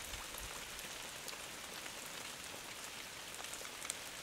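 Light rain falling steadily, with many small drops tapping on the shelter overhead.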